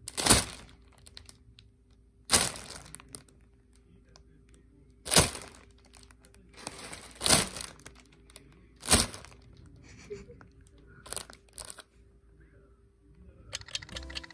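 Clear plastic bag crinkling in a string of sharp rustles a second or two apart as a cat shifts and paws inside it. Music comes in near the end.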